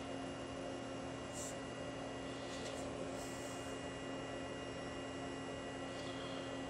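Steady electrical hum holding several fixed tones, with a few faint, brief handling rustles as a dial test indicator is set against a ground steel part.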